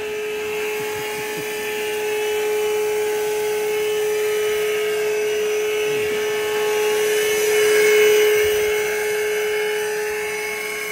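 Milwaukee cordless wet/dry vacuum running steadily, a whine with airflow hiss, as it sucks boxelder beetles off a wall through a long hose. The sound swells about eight seconds in.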